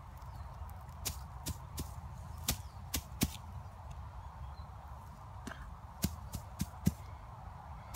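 Dry grass and dead leaves crackling and snapping as hands press and brush through them: irregular sharp snaps, a few at a time, with a cluster about six to seven seconds in, over a low steady rumble.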